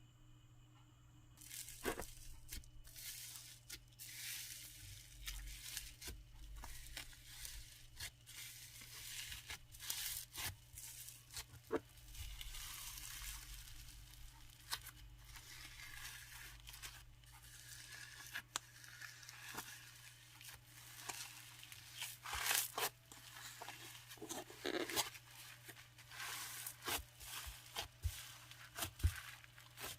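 Hands pressing and pulling a crispy snow slime (눈꽃슬라임), making a dense run of crisp crackles and tearing sounds that begins about a second and a half in.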